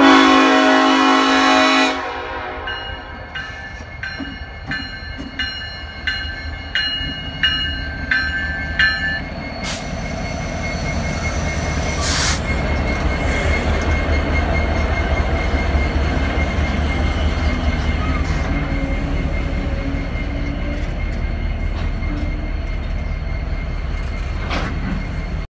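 Norfolk Southern SD70ACC diesel locomotives working as a pusher sound one long horn blast. A bell then dings rapidly for several seconds. From about ten seconds in, the locomotives' diesel engines rumble steadily as they pass close by, with a steady whine and one sharp clank.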